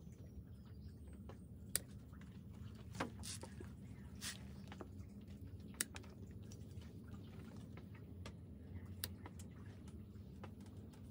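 Quiet background: a low steady hum with a few faint, scattered clicks and ticks.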